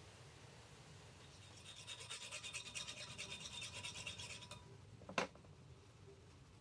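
Round hand file rasping the cut edge of a metal ring in quick back-and-forth strokes for about three seconds. A single sharp knock follows about five seconds in.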